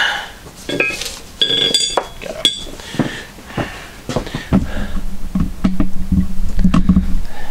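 Heavy steel parts of a manual pipe bender clinking and ringing as the die bolt is pulled out and the die and roller are handled. In the second half, a low steady rumble with knocks for a few seconds.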